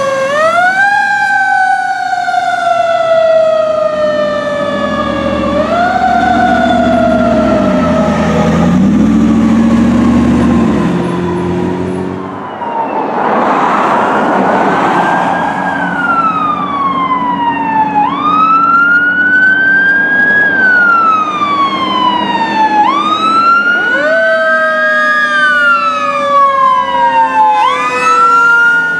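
Fire truck sirens on an emergency response: a Federal Q mechanical siren wound up again and again, each time rising quickly and coasting slowly back down, with air horn blasts about a quarter of the way in and a passing truck's engine rushing near the middle.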